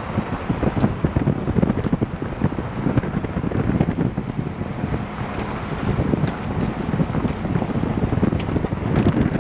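Wind buffeting the microphone of a camera mounted on the outside of a Nissan X-Trail driving on a gravel road, over a steady rumble of tyres on the gravel. Small ticks of loose stones are scattered through it.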